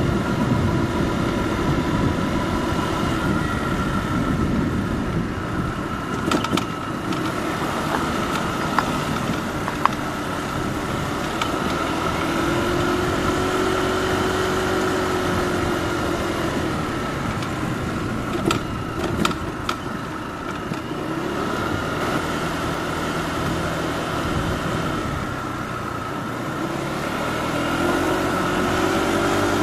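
Motorbike engine running while riding along a town street, its pitch rising and falling a couple of times, with a few brief clicks.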